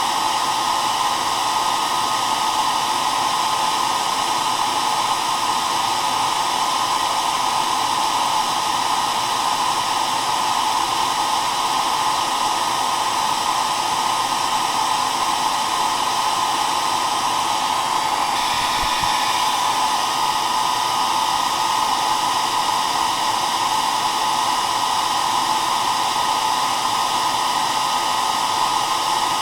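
Hair dryer running steadily with an even rushing noise, its airflow strongest in the midrange, with faint steady motor tones.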